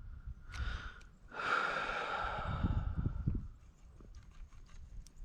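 Fishing reel whirring as line pays out on a cast, its pitch steady and then fading as the spool slows, followed by a few light clicks from the reel.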